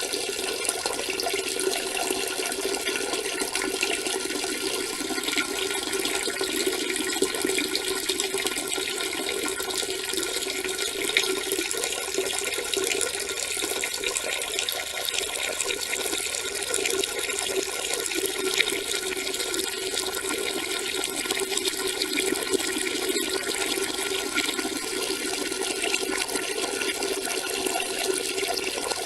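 A steady stream of urine splashing into a toilet bowl's water, continuous with no break.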